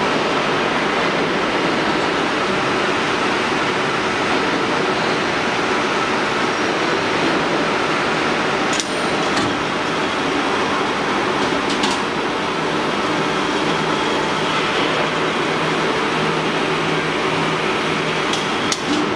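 Steady noise from an automatic LNG tank body assembly machine in its factory hall, with a few sharp metallic clicks near the middle and near the end. A low hum comes in past the middle and stops shortly before the end.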